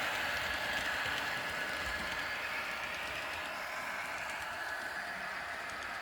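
Model railway train running along the track: a steady rolling whir of the wheels and motor that slowly fades.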